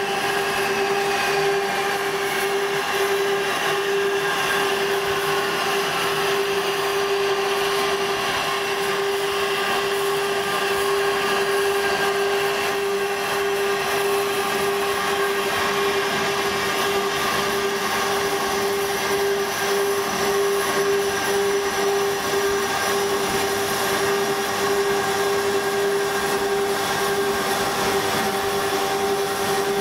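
Asada Beaver 4 Eco portable band saw running under load, its blade cutting through a metal pipe clamped in the chain vise. A steady motor and blade hum with one strong, constant tone over the rasp of the cut.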